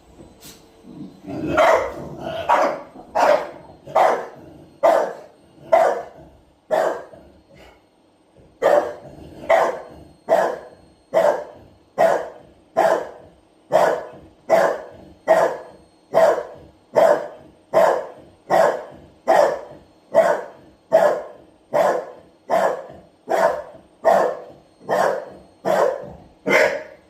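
A dog barking over and over in a steady rhythm, a little more than one bark a second, with a short break about eight seconds in.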